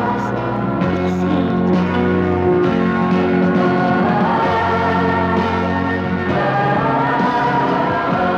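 Film score music: a choir singing long held chords, the harmony changing about a second in and again about six seconds in.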